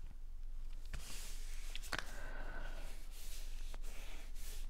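Hands handling and pressing cardstock flat on a tabletop: soft paper rustling with a few light taps, the sharpest about two seconds in.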